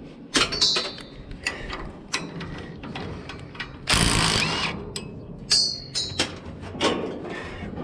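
Metal tools and parts clanking and clicking on a steel hay baler during disassembly, with a couple of ringing metallic clinks. A short, loud burst of rasping noise comes about four seconds in.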